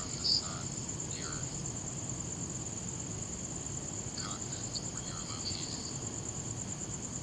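Crickets trilling steadily in a fast, even, high-pitched pulse, with a few faint short calls that drop in pitch and a low background rumble.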